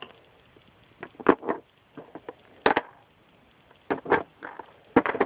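Small metal parts of a disassembled padlock clicking and knocking as they are handled and pried apart, in four short clusters of sharp clicks.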